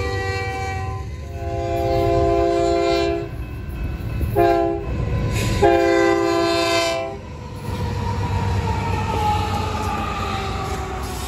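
Horn of a pair of rebuilt Union Pacific C44ACM diesel locomotives sounding a chord in a long blast, a short blast and a long blast, over a steady engine rumble: the end of the long-long-short-long grade-crossing signal. After the last blast a whine falls steadily in pitch as the locomotives pass.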